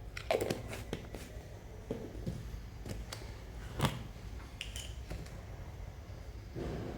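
Scattered light clicks and knocks of kitchen utensils and containers being handled, with one sharper knock about four seconds in, over a low steady hum.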